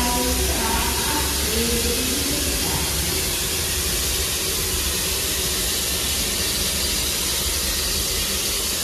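Steady, loud hiss of steam venting from a 1908 Baldwin 4-4-0 narrow-gauge steam locomotive, over a low rumble, with voices trailing off about two seconds in.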